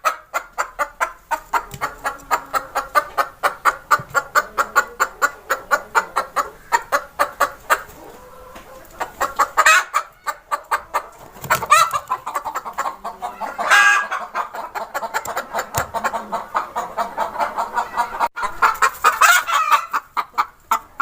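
Domestic hen clucking in a fast, even run of about five clucks a second. Around the middle a brief lull is broken by a few louder, longer squawks. The quick clucking then resumes.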